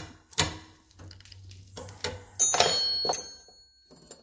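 Metal wrenches clicking and clanking together as they are handled, with a loud ringing clank about two and a half seconds in.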